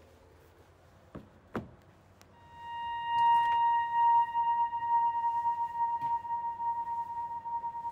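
A few soft knocks, then about two seconds in a synthesizer tone fades in and is held at one steady pitch, wavering slightly in loudness, as the song's introduction.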